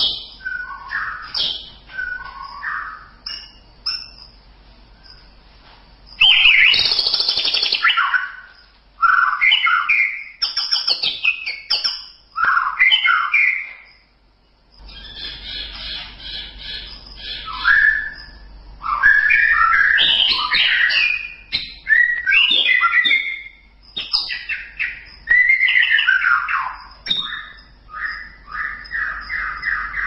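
White-rumped shama (murai batu) singing a varied song of short whistled and chattering phrases, with a harsh rasping note about seven seconds in and a brief pause near the middle, over a faint low hum.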